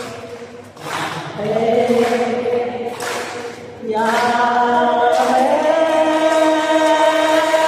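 An elderly Buddhist nun's voice chanting slow, long-held notes into a microphone, in phrases broken by short breaths. The last phrase starts about four seconds in and is held to the end, stepping up in pitch partway through.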